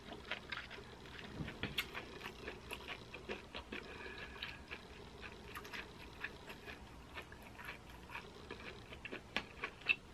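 Close-miked chewing of a mouthful of baked corn cheese from the browned edge: soft, irregular little crunches and wet mouth sounds.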